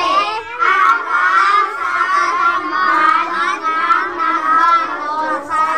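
A group of children reading a Bible verse aloud together in unison, their voices continuous without pauses.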